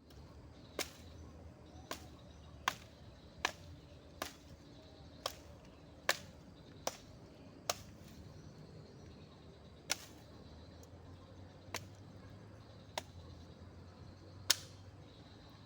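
A series of about thirteen sharp knocks at an uneven pace, roughly one a second, over a faint steady background.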